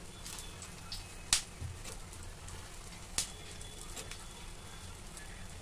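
Besan pakoras frying in a shallow layer of hot mustard oil in an iron kadhai: a faint steady sizzle with a few sharp oil pops, the loudest about a second and a half in and another about three seconds in.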